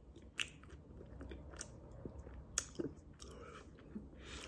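A person chewing a mouthful of lobster tail pastry, the flaky shell crunching softly, with a few sharp clicks, the loudest about half a second in and midway through.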